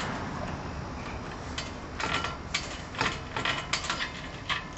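Metal lock on a steel gate being worked by hand, giving a run of irregular sharp metallic clicks and knocks that start about one and a half seconds in.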